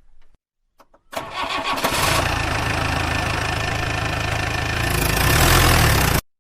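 A couple of short clicks, then a vehicle engine starts about a second in and runs steadily, getting a little louder near the end before cutting off abruptly.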